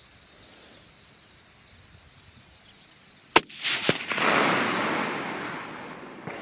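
A single rifle shot from a compact 7mm hunting rifle firing a 162-grain ELD Match bullet, about three and a half seconds in, followed by a fainter crack half a second later and a rolling echo that dies away over about two seconds.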